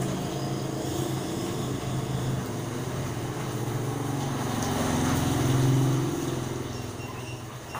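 Small motor scooter engine approaching and passing close, loudest about five to six seconds in, then fading as it goes by.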